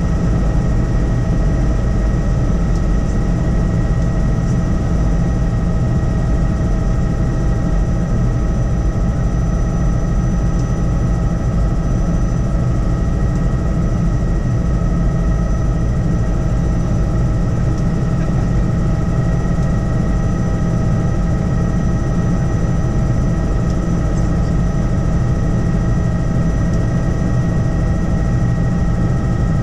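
Helicopter in flight: a steady low drone of rotor and engine with a steady high whine on top.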